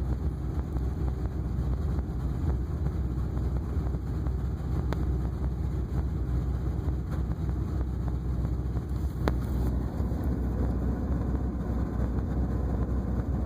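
Steady low drone of a 2002 Ford Super Duty's 5.4L V8 and road noise, heard from inside the cab with the throttle floored. The fuel pressure has sagged to about 10 psi, so the engine is starved of fuel and losing power.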